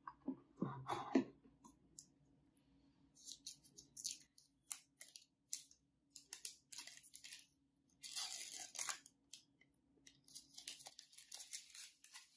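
Plastic wrap being picked at and peeled off a new MacBook Air USB-C power adapter: a long run of short crinkling, tearing rustles. In the first second or so, a few dull knocks as packaging is moved.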